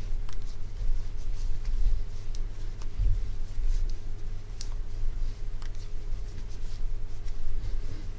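Hand knitting on wooden needles: soft rustling of yarn and scattered light ticks of the needles as stitches are worked, over a steady low rumble and a faint steady hum.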